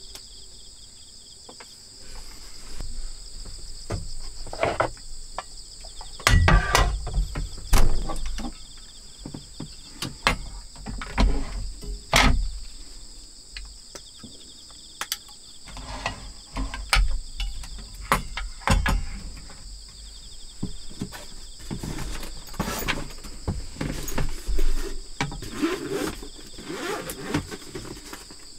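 Insects chirring steadily outside, with a string of handling sounds over it: knocks and clatters as gear is picked up and set down on a wooden table, and packaging rustling. The heaviest thumps come about six, eight, twelve and nineteen seconds in.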